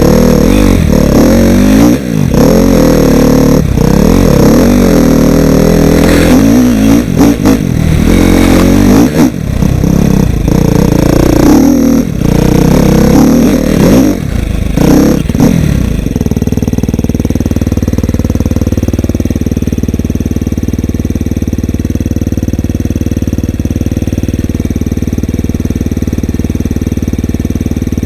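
Off-road dirt bike engine pulling under changing throttle, its pitch rising and falling with short drops as the rider works over the trail; about sixteen seconds in it settles into a steady idle.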